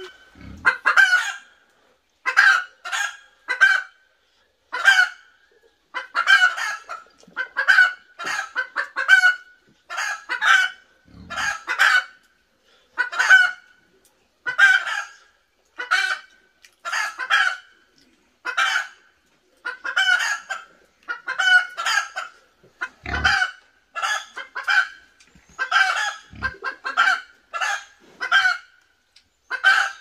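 Chickens clucking: a steady run of short calls, one or two a second.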